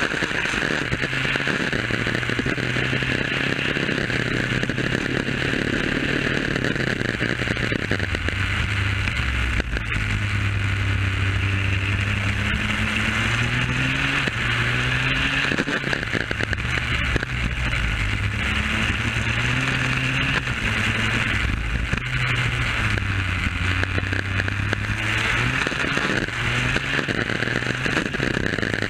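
Superkart's two-stroke engine running at speed through a lap, its revs climbing and dropping several times between straights and corners, with the engine still being run in. Steady wind rush on the microphone underneath.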